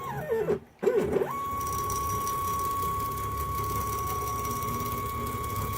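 Stepper motor driving the mini mill's Z axis on a jog: a steady whine that falls in pitch and stops within the first second as the axis slows into its soft limit, then, after a brief knock, rises again and holds steady as the axis runs back the other way.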